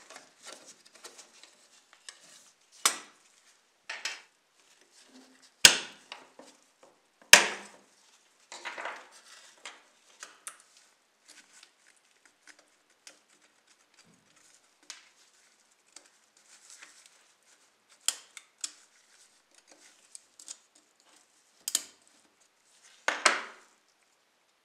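Sporadic sharp clicks, clinks and light scrapes of small metal and plastic parts as a model car is taken apart by hand, with a small screwdriver prying at the body, and quiet gaps between them.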